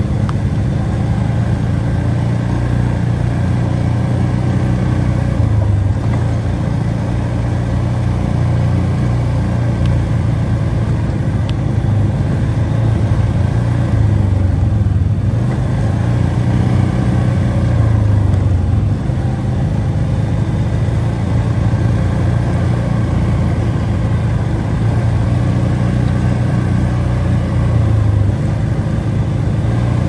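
ATV engine running steadily while the machine is ridden along a trail.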